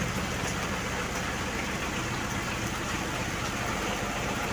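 Ford Everest's four-cylinder turbodiesel idling steadily just after starting, heard from inside the cabin.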